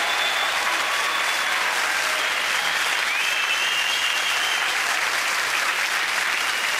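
Theatre audience applauding, steady clapping.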